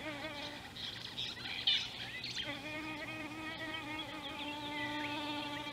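A flying insect buzzing close to the microphone: a steady hum with a slightly wavering pitch that fades out for about a second and then comes back. A few short high chirps sound in the first half.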